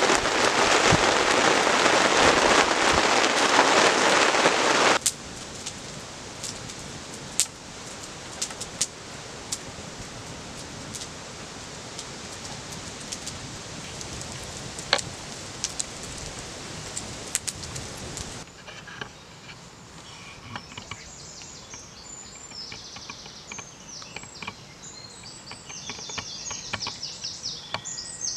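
A loud steady hiss that cuts off abruptly about five seconds in, then a wood campfire crackling with scattered sharp pops. About two-thirds of the way through, this gives way to birds singing with quick high chirps.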